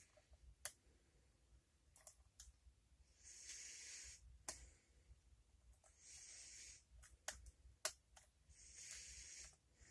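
Faint, scattered clicks and ticks of a lock pick and tension wrench working the pins inside an Abus pin-tumbler lock while it is being picked. Three soft rushes of breath come between the clicks.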